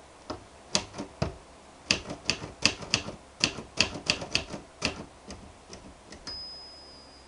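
Adler Tippa manual portable typewriter being typed on: about two dozen sharp, unevenly paced key strikes over six seconds. Near the end comes a single high ring that fades over about a second, the carriage's margin bell.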